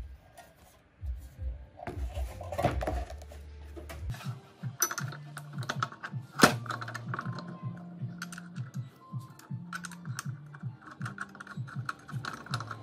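Light metal clicks and knocks as an angle grinder is fitted onto a steel cutting stand and handled, with one sharper click about six seconds in. Background music with a steady bass line plays underneath.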